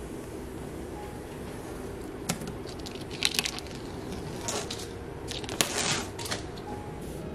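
Clear protective plastic film being peeled off the glossy edge of a flat-pack TV stand: crackling, crinkling rips that come in spurts, loudest about three seconds in and again around six seconds.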